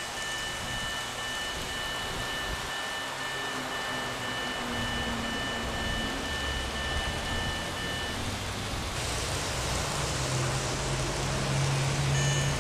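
Model railway level crossing with trains running: a steady rushing noise, and a thin steady electronic tone from the crossing signal that cuts off about eight seconds in as the warning switches off. A low hum grows louder near the end.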